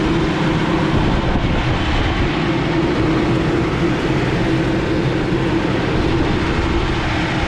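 Belt-driven exhaust hood fan running steadily on its freshly tensioned belt: a loud, even rush of air with a steady hum through it.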